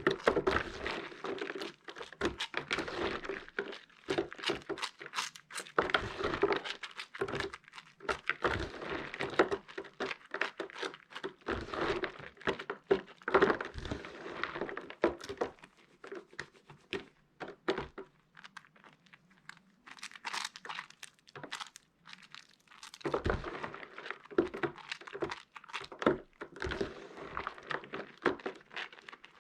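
Pieces of soap being washed and squeezed by hand, giving dense, irregular crackling and crunching clicks. The clicks thin out for a few seconds past the middle, then pick up again.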